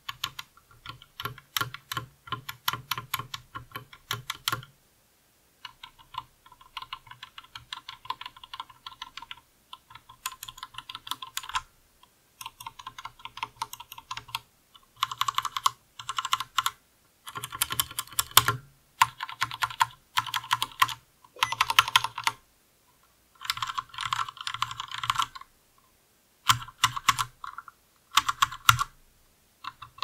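Typing on an IKBC MF87 aluminium tenkeyless mechanical keyboard with Cherry MX Red linear switches and pudding keycaps: rapid key clacks in bursts of one to three seconds, with short pauses between them.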